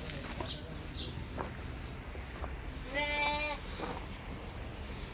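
A four-month-old lamb bleats once, about three seconds in, with a call of a little over half a second. A few faint clicks come from the flock.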